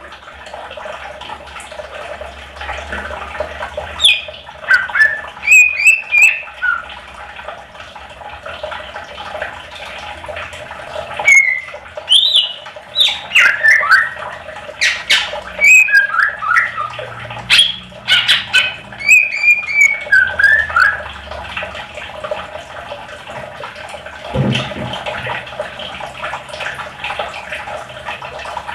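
Green leafbird (cucak ijo) singing: bursts of quick chirps, whistled pitch glides and harsher squawk-like notes, most frequent in the middle stretch. They sit over a steady background din, with a single low thud near the end.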